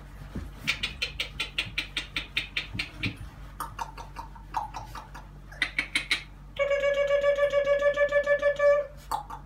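Cavapoo puppies yipping in quick runs of short, sharp yips, about six a second. Later comes a long, steady, horn-like tone of about two seconds, the loudest sound here.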